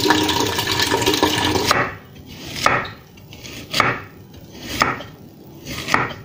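Tap water running into a stainless steel pot in a sink. It stops suddenly, and then a kitchen knife slices daikon radish on a cutting board in four slow chops about a second apart.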